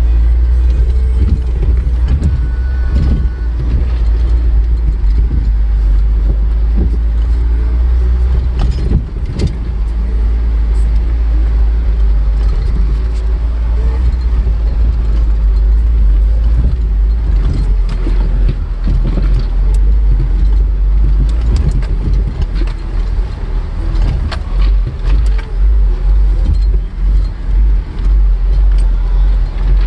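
Off-road vehicle crawling a rough dirt trail, heard from inside the cab: a steady low engine rumble with scattered knocks and rattles from the bumps, the drone pulsing unevenly near the end.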